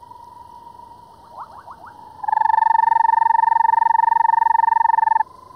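Banded rubber frog calling up close: one loud, steady trill about three seconds long that starts about two seconds in and stops abruptly. A fainter steady trill runs underneath, with a few short rising notes just before the loud call.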